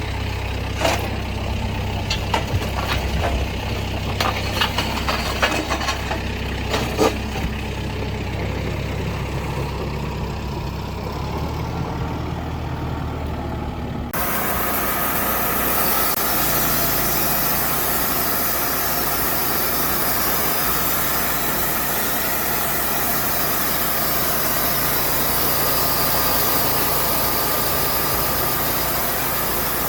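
Engine running steadily, with scattered clanks and knocks over the first half. About halfway through the sound changes abruptly to a steadier, hissier engine noise.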